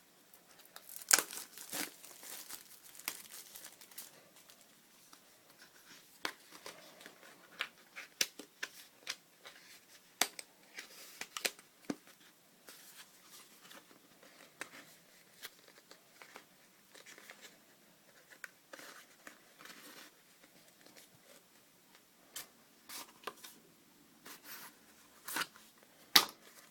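SSD retail packaging being opened and handled by hand: tearing and crinkling with scattered clicks and rustles, and sharper snaps about a second in and near the end.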